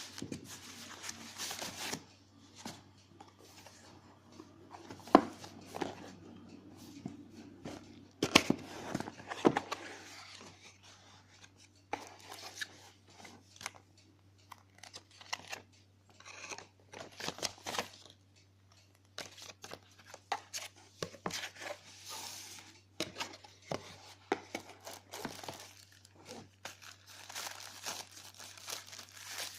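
Packaging being handled and torn open: irregular tearing and crinkling of wrapping and cardboard, with a few sharp knocks about five seconds in and again around eight to ten seconds in, over a steady low hum.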